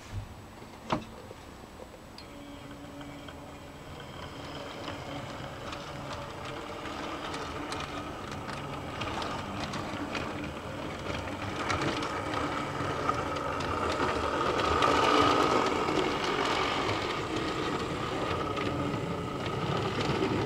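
OO gauge Hornby Ivatt 2-6-0 model locomotive running: the hum of its small electric motor, fitted with a five-pole armature, with the wheels clicking over rail joints and points. A sharp click comes about a second in. The sound grows louder as the train comes near, is loudest about three-quarters of the way through, then eases.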